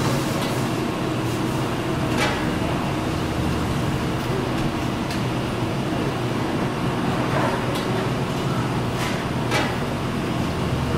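Steady mechanical drone, like machinery or ventilation running, with a couple of brief rushing sounds, one about two seconds in and one near the end.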